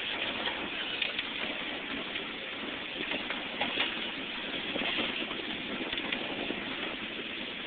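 Steady rumble and rattle of a 12-inch gauge miniature railway train rolling along its track, with irregular light clicks.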